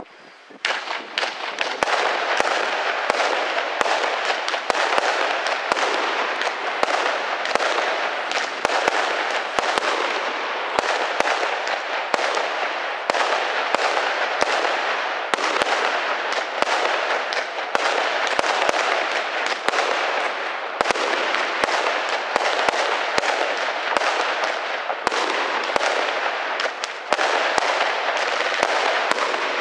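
Fireworks and firecrackers going off in a nonstop barrage: a dense crackle of countless bangs and pops, starting about half a second in.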